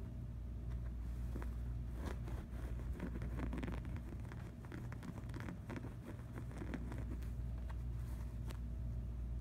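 Light scratching and rustling of a kitten's paws and claws on fabric couch upholstery, with a hand brushing the cushion, as scattered small clicks over a steady low hum.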